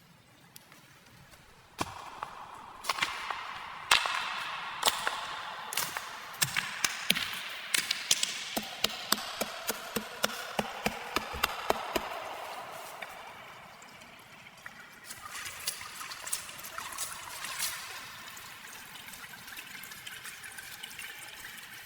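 Water pouring and trickling, with many sharp clicks over it, about two a second through the middle.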